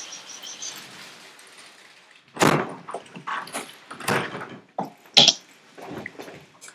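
A casement window being pulled shut and its handle turned: a string of irregular knocks and clunks from the frame and latch, after about two seconds of faint steady hiss through the open window.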